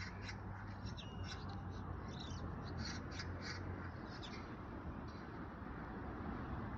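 Magpie calling: a run of short calls at uneven intervals, over a steady low hum.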